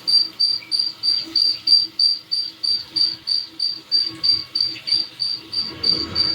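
A high-pitched chirp or beep repeating very evenly, about three to four times a second, with a fainter low tone pulsing in step with it.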